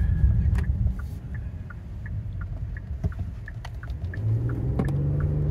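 Turn signal ticking about three times a second over the low cabin rumble of a 2020 Kia Telluride V6. About four seconds in, the engine note rises as the SUV accelerates out of a right turn.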